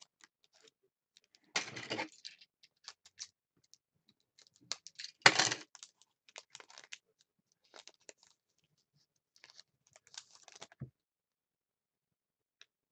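Foil wrapper of a trading-card pack torn open and crinkled in the fingers: short scattered rustles and crackles, loudest about a second and a half in and again about five seconds in.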